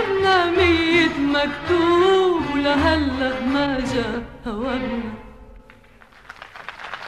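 Recorded Arabic song: a woman's voice sings a long, ornamented phrase over accompaniment and ends about five seconds in. Audience applause starts near the end, marking a live recording.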